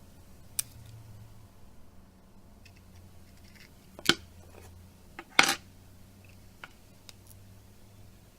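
Sharp clicks and taps of small phone parts and tools being handled on a workbench during a smartphone repair. There is one click about half a second in, a louder one about four seconds in, and the loudest, slightly longer clatter about five and a half seconds in, with a few faint ticks after it, over a faint low hum.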